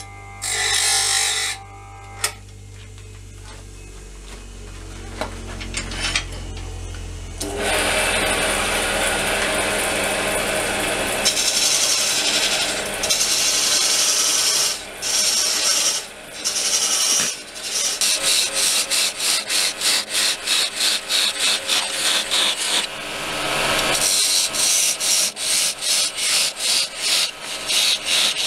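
A bench grinder grinds a steel parting tool for a second or two, then gives way to a quieter stretch of motor hum. From about seven seconds in, the parting tool cuts into an oak blank spinning on a wood lathe with a loud rasping noise. Later in the cut the noise pulses about twice a second.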